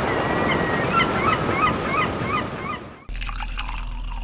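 Surf washing, with a bird calling in a quick run of about six short, repeated calls over it. About three seconds in, this cuts off abruptly and gives way to a steady low hum with faint clicks.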